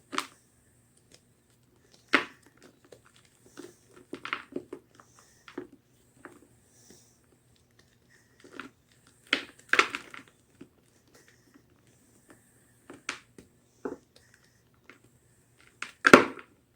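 Block of gym chalk being crushed: sharp, crumbly crunches every few seconds, the loudest near the end, with small crackles between them.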